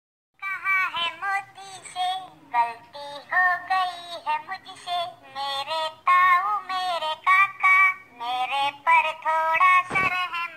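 High, chipmunk-like pitch-shifted voice of the Talking Tom cat singing, its notes gliding and held.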